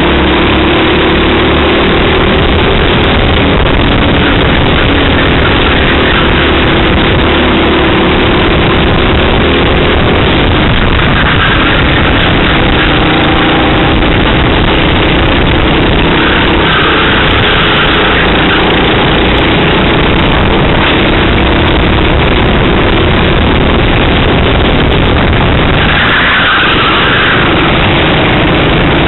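Racing kart engine running hard, its pitch rising and falling as it is driven through the corners, heard loud and distorted onboard with wind rushing over the microphone.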